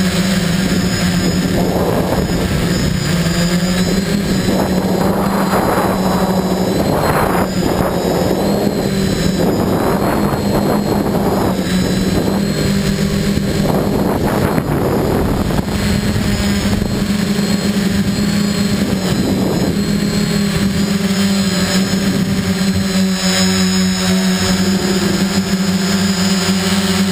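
FPV quadcopter's electric motors and propellers running with a steady buzzing hum, heard from the camera on board the quad. Several louder rushes of noise come and go, wind gusts buffeting the microphone.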